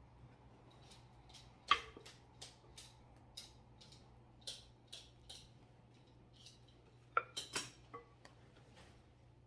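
A utensil clinking and scraping against a bowl while pudding and whipped cream are spooned into layers: a string of light clicks, a sharp clink about two seconds in, and a quick cluster of louder clinks about seven seconds in.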